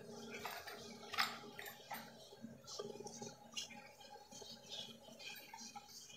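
Faint clicks and clinks of small metal screwdriver bits in a plastic tool holder as it is handled and set down, with one sharper click about a second in.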